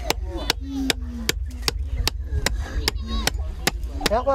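Quick, regular hammer strikes on metal, about three or four a second, from a blacksmith working a small blade by hand.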